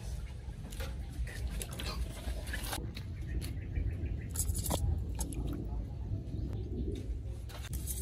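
Hands sloshing and scooping through water in metal bowls while rinsing ants and leaves, with small splashes, drips and short clicks against the metal.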